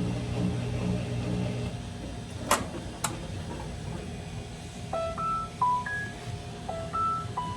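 Maytag commercial top-load washer finishing its cycle: a low pulsing hum from the machine stops about two seconds in, two sharp clicks follow, then the end-of-cycle signal plays, a short tune of electronic beeps stepping up and down in pitch.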